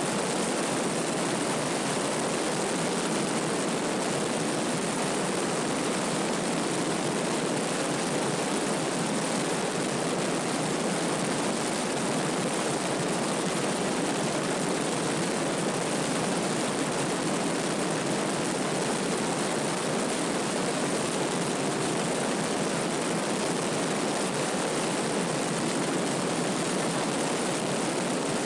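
Piper PA-32's six-cylinder engine and propeller at full takeoff power, mixed with wind rushing over an outside-mounted camera. The result is a loud, steady, even roar through the takeoff roll and climb.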